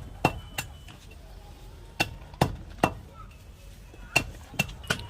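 Green fodder being chopped by hand with a knife: sharp strokes of the blade in quick runs of two or three, eight strokes in all.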